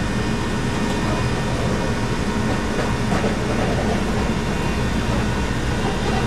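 Steady mechanical rumble with a constant hum running underneath.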